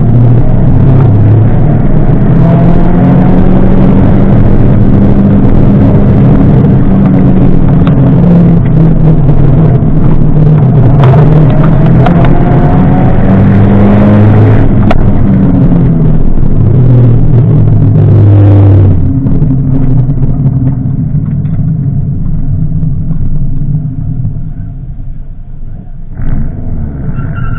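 1995 Mazda Miata's 1.8-litre four-cylinder engine driven hard, its pitch rising and falling with throttle and gear changes, heard with the top down. About two-thirds of the way through it drops off to a much quieter low running as the car slows.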